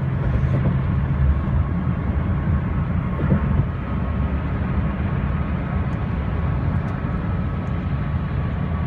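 Steady low rumble of a car heard from inside its cabin, with faint steady tones above it.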